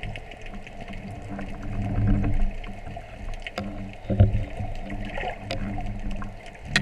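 Underwater sound: scattered sharp clicks and crackles over a low droning hum that swells and fades, with one louder click near the end.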